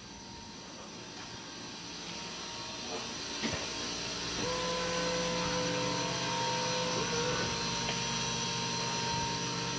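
Steady machine hum and hiss, growing louder over the first few seconds, with a steady whine joining about four and a half seconds in.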